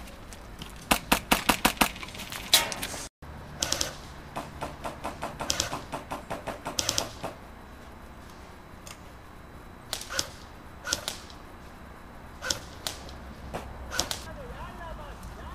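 Airsoft rifle fire: a fast burst of sharp cracks about a second in, more strings of rapid shots over the next few seconds, then scattered single shots roughly a second apart.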